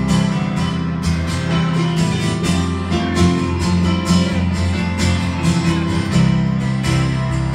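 Live band music: an electric keyboard played along with a strummed acoustic guitar, with a strong bass line and a steady beat.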